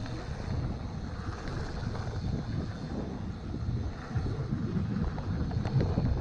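Mondraker Vantage mountain bike rolling fast down a dirt and sand trail: knobby tyres rumbling and crunching over the ground, with the bike rattling over bumps. Wind rushes over the microphone throughout.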